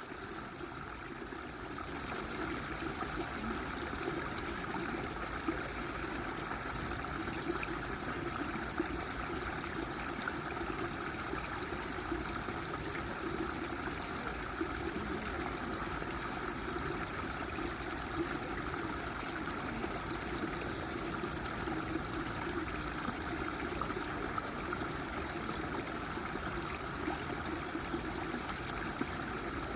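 Water running steadily, a continuous flowing, trickling rush with no break, slightly quieter in the first couple of seconds.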